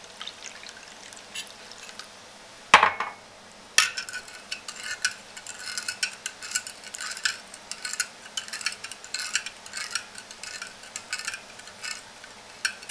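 A metal spoon stirring a milky jelly mixture in a ceramic bowl, clinking against the bowl in quick, uneven strokes. Water pours in quietly at first, and a sharp clack, the loudest sound, comes just before the stirring starts.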